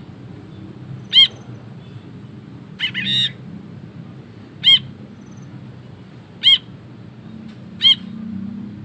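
Brinji kelabu bulbul giving short, ringing calls spaced about one and a half to two seconds apart, six in all, the one about three seconds in longer and doubled. A faint low hum runs beneath.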